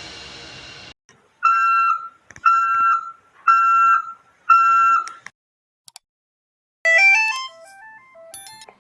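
Mobile phone ringtones. A fading tone in the first second, then four identical electronic beeps about a second apart. About seven seconds in, a different ringtone starts: a quick melody of stepped synthesised notes running up and down.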